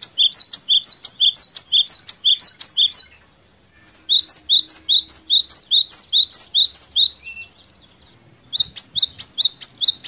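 Cinereous tit (gelatik batu) singing loudly: a two-note phrase, a high note then a lower one, repeated about two times a second. It sings three bouts, with short pauses about three seconds and eight seconds in.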